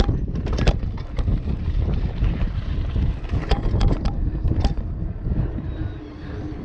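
A downhill mountain bike rattling over rough ground, with wind noise on the microphone. Under a constant low rumble come many scattered sharp knocks and clacks as the bike bounces over bumps.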